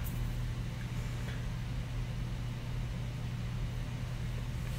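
Steady low hum with a faint even hiss: room tone, with no distinct events.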